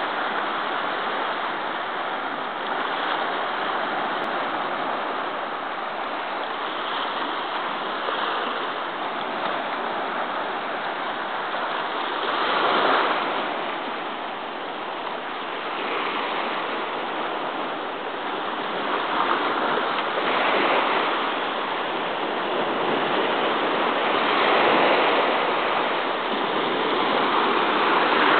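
Small sea waves washing over shoreline rocks and sand: a steady hiss of surf that swells louder every several seconds as a wave breaks.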